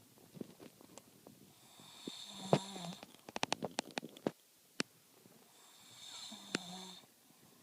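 A sleeping child snoring: two long snoring breaths about four seconds apart, each with a whistling edge. Between them, about three seconds in, comes a quick run of sharp clicks.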